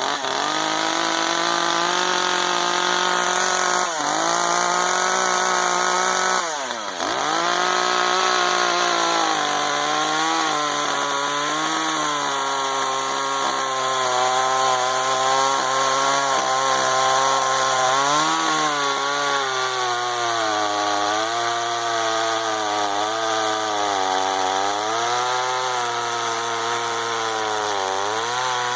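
Two-stroke gas chainsaw running at full throttle, cutting through a pine log. The engine note wavers and sags as the chain bites into the wood, dipping briefly about four and seven seconds in, then again later before recovering.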